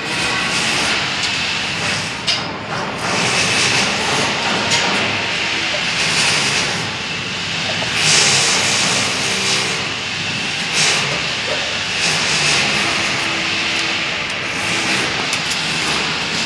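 Steady, loud rushing noise with a few light rubs and knocks scattered through it.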